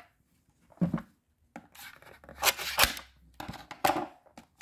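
Hands handling a shrink-wrapped plastic toy egg carton: short bursts of rubbing and scraping on the film wrap, with a sharp knock just under three seconds in.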